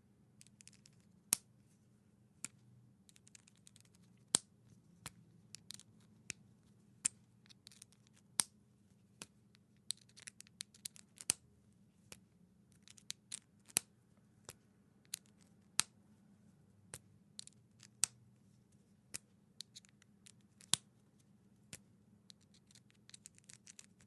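A 3.5 mm headphone plug being pushed into a headphone jack and pulled out again, over and over: sharp plastic-and-metal clicks, each insertion or removal a loud click with small scratchy clicks of handling between.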